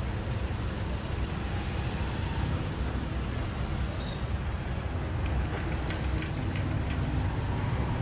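Road traffic: cars passing on a street, a steady rumble, with a few short clicks in the second half.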